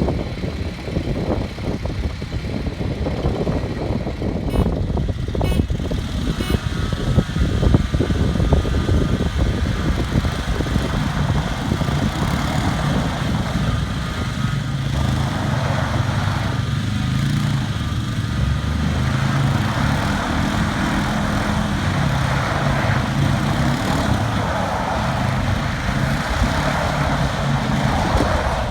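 Engines of a Toyota Tacoma pickup, a quad and a John Deere X304 lawn tractor running hard under load in a tug of war, with wheels spinning out. The engine note settles into a steadier, higher pitch about twelve seconds in.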